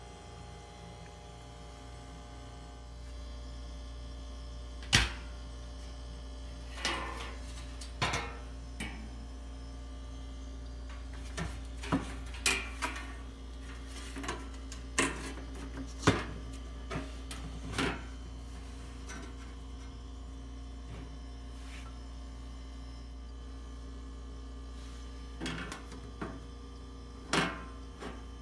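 Steady low hum of a running refrigerator, with a dozen or so short, sharp clicks and knocks scattered through it, the loudest about five seconds in and again about sixteen seconds in.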